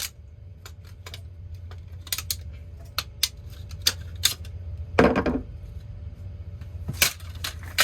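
Small plastic and electronic pieces of a smashed alarm clock clicking and clattering as they are handled, with a louder knock about five seconds in and another near seven seconds.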